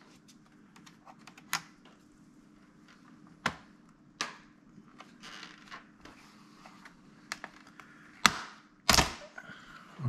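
Sharp plastic clicks and snaps, a handful spread out, the loudest two near the end: the snap-in clips of a Lenovo Legion 5 laptop's plastic bottom cover popping loose as it is pried and pulled off.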